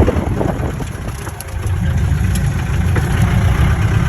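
Off-road vehicle's engine running with a low rumble, growing louder and steadier about a second and a half in, with a few light knocks.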